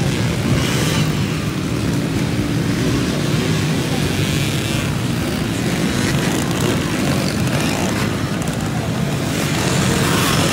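Many small motorcycle engines, dirt bikes and minibikes, running at once in a dense, steady mix of engine noise.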